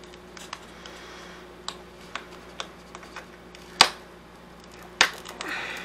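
Scattered small clicks and ticks of the cracked glass back of an iPhone 4 crackling under fingertip pressure as the cracks are pushed wider. The sharpest click comes nearly four seconds in and another about five seconds in.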